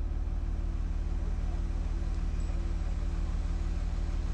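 Engine of a 32-ton mobile crane idling steadily, a low even hum.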